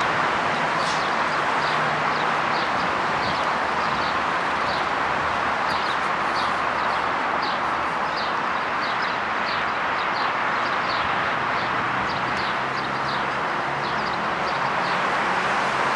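Steady rushing background noise with small birds chirping over and over, under the low, even drone of a distant MLW diesel locomotive approaching with a freight train.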